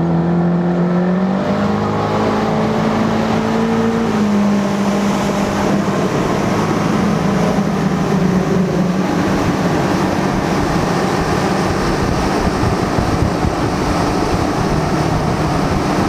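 Motorboat engine running at speed, its pitch rising over the first few seconds and then holding steady, with wind and water rushing past.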